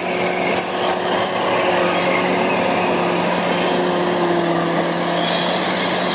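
Kubota DC-105X rice combine harvester running under load while cutting, its engine and threshing machinery droning steadily. A fast high ticking, about three a second, stops a little over a second in, and a high whine rises near the end.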